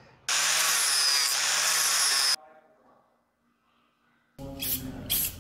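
Handheld power grinder grinding down part of a steel brake pedal to clear an interference, a steady high hiss with a thin whine that starts abruptly and cuts off after about two seconds. Near the end, a few faint knocks.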